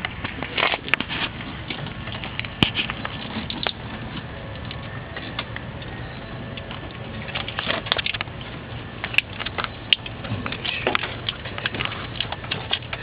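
Hands working wiring and plastic tubing: scattered crackles and clicks, with a few sharp taps and bursts of rustling.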